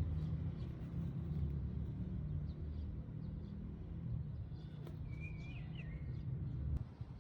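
Steady low outdoor rumble, with a short warbling chirp about five seconds in.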